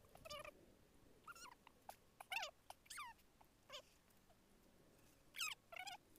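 Faint, short, high animal calls, each sliding down in pitch, repeated about eight times at uneven intervals, the loudest about two and a half seconds in and near the end.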